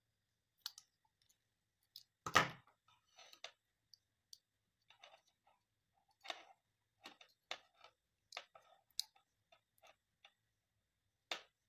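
Pliers and wire being handled while an insulating sleeve is worked onto a soldered wire joint: scattered small clicks and rustles, with one louder clack about two seconds in.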